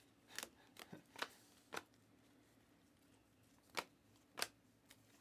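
A stack of trading cards being thumbed through by hand, each card slid off the stack with a short crisp click. About seven clicks at uneven intervals, four in the first two seconds and three more near the end.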